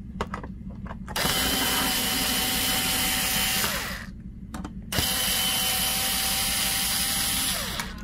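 Cordless electric screwdriver running twice, about three seconds each, backing out the screws that hold the SSD caddy in a mini PC. Its steady motor whine drops in pitch as each run stops, with small clicks in between.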